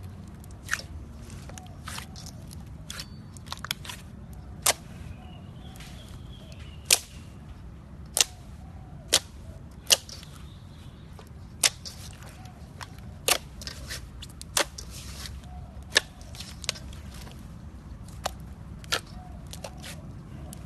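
Slime being squeezed and poked by hand, giving irregular sharp pops and clicks as trapped air bursts, roughly one a second and some much louder than others, over a low steady hum.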